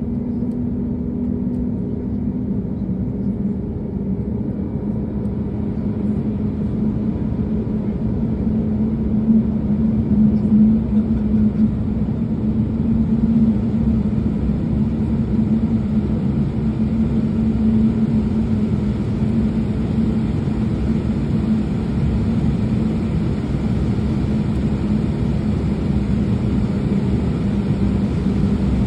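Embraer E195-E2's Pratt & Whitney PW1900G geared turbofan (the left engine) running at ground idle, heard from inside the cabin: a steady rushing noise over a low hum. From about six to ten seconds in it grows a little louder and brighter.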